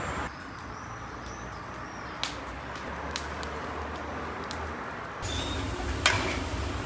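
A fire burning in a clay tandoor oven, a low steady rumble with a few sharp crackles. Near the end a long-handled metal ladle scrapes and clanks against a large kazan as mastava is stirred.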